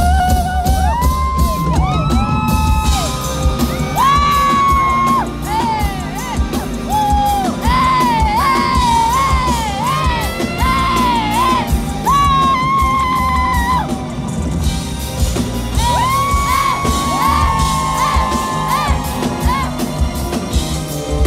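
A live pop song played loud through a concert PA, with heavy bass and a steady drum beat under a high voice singing long, held, bending notes.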